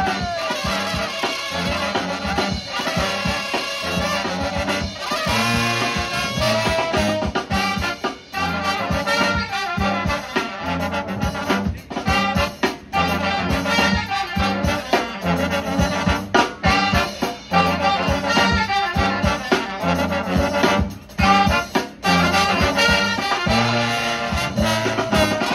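Live brass band playing an up-tempo tune: trumpets, trombones and saxophones over a sousaphone bass line and a drum kit keeping a steady beat.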